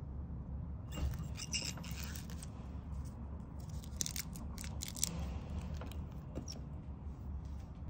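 Dry white sage leaves crackling and rustling as fingers push them into a glass jar of dried rose petals. The crisp crackles come in two clusters, about a second in and again around four to five seconds in, over a steady low hum.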